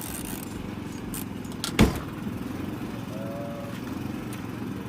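Portable generator engine running steadily, with a few light clicks and one sharp thump a little under two seconds in.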